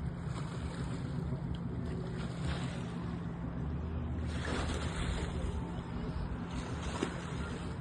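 A boat engine running with a steady low hum, under a wash of water and wind noise, with a few louder rushes of noise through the middle.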